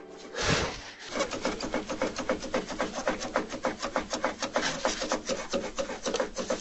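Worn anti-roll bar (stabilizer) link on a Ford Galaxy knocking as it is shaken up and down by hand. A heavier thump about half a second in is followed by a rapid run of clicks, about four or five a second. The knock comes from play inside the link, where the owner suspects the plastic has broken up.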